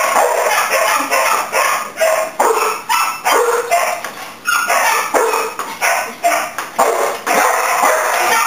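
A dog barking over and over, about two barks a second without a break.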